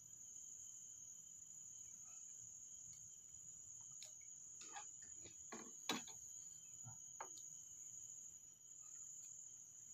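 Steady high-pitched insect chorus, crickets or similar, with a few faint light clicks and taps around the middle, the sharpest about six seconds in.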